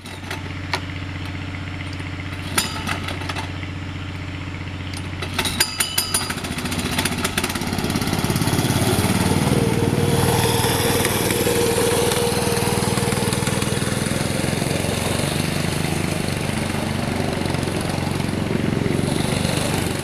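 Go-kart's small engine idling steadily, with a few sharp clicks, then revving up and running louder and steadier from about eight seconds in as the kart is driven.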